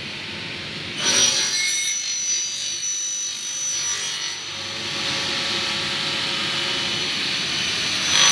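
Double-head aluminium cutting saw: the spinning blade runs steadily, then about a second in it bites into an aluminium window profile and cuts with a loud, high-pitched metallic screech that holds several steady whining tones and continues almost to the end.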